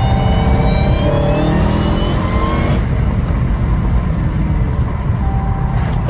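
Dodge Hellcat Redeye's supercharged V8 pulling hard, its pitch and supercharger whine climbing for about three seconds, then cutting off suddenly, leaving a steady low engine and road noise.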